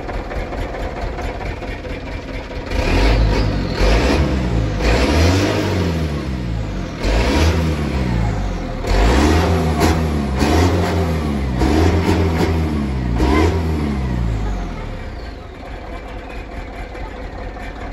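Mitsubishi Canter truck's diesel engine running through a fitted Toyota Fortuner muffler: idling, then revved repeatedly in a series of sharp blips about three seconds in, each rising and falling in pitch, before dropping back to idle near the end.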